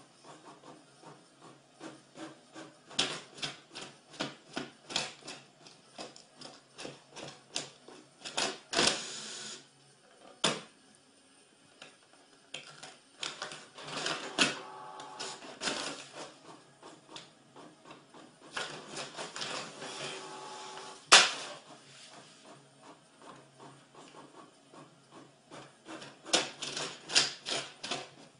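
Desktop printer working through a print job: runs of sharp mechanical clicks and ticks, with two stretches of motor whirring as the paper feeds through. A single loud click comes about three-quarters of the way in.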